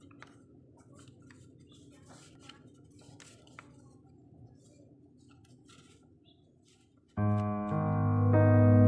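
Paper banknotes flicked and shuffled by hand, a run of faint quick rustles and crackles. About seven seconds in, loud electric piano music with sustained chords starts suddenly.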